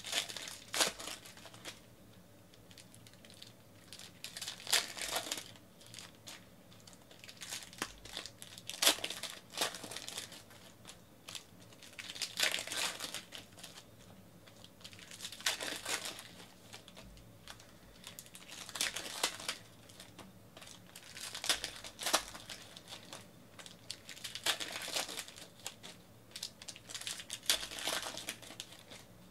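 Foil-plastic wrappers of Panini Prizm basketball card packs being torn open and crinkled by hand, in bursts about every three to four seconds.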